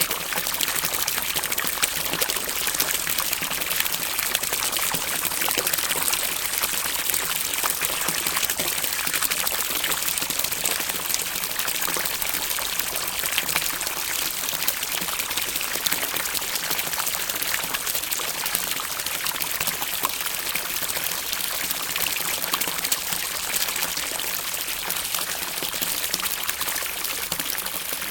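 Water rippling and trickling: a steady run of pouring water, thick with small splashes and drips.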